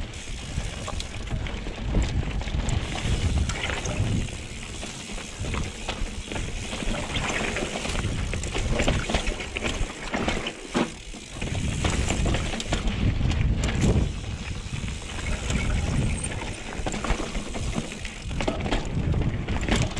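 Trek Remedy 8 mountain bike riding down a rough rock trail: tyres rumbling and crunching over rock, with frequent sharp knocks and rattles from the bike over bumps, and wind buffeting the microphone of the chin-mounted camera.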